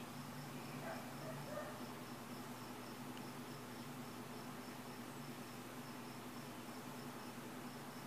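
A cricket chirping steadily, about three short high chirps a second, over a faint low steady hum, with a little faint handling noise about a second in.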